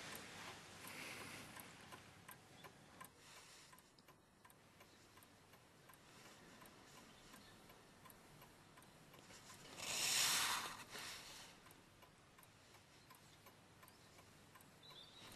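A clock ticking faintly, with a brief rushing noise about ten seconds in.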